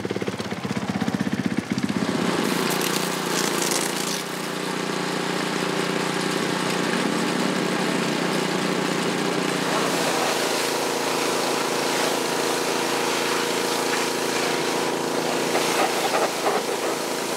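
A small engine running steadily with a steady hiss over it, settling into an even drone after about two seconds.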